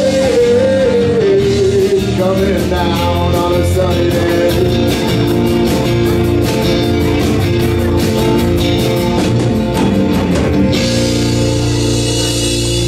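Live rock band with electric guitars, bass guitar and drum kit playing, with a lead vocal line in the first second or so and steady drum strokes after it. A loud, bright hiss joins in near the end.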